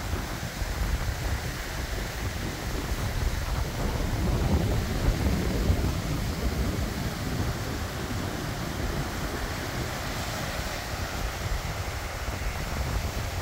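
Wind buffeting the microphone in uneven gusts, over the steady wash of sea surf breaking on the shore.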